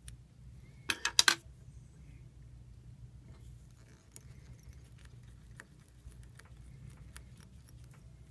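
Fine fly-tying scissors snipping the excess feather at the hook: a quick cluster of four or five sharp metallic clicks about a second in, followed by faint scattered ticks.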